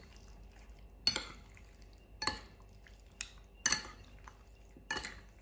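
A utensil clinking against a bowl as chicken wings are stirred together with their marinade of seasonings and fish sauce. There are five short clinks, about one a second and irregularly spaced, each with a brief ring.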